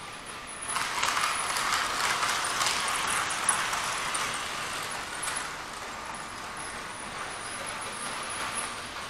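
A model train running on the layout's track, its wheels rattling and clicking over the rails. The rattle comes in suddenly under a second in, stays loudest for about three seconds, then slowly dies away.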